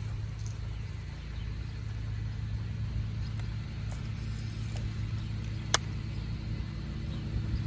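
A steady low mechanical hum, like an engine or motor running at a constant speed, with a single sharp click a little under six seconds in.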